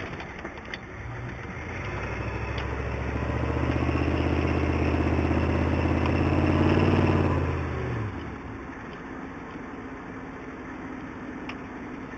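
1993 Ford F-250's 7.3-litre IDI V8 diesel with a Flowmaster exhaust, heard from inside the cab while driving. The engine note grows steadily louder under throttle over the first few seconds and holds, then drops away suddenly about two-thirds of the way through to a quieter, steady run.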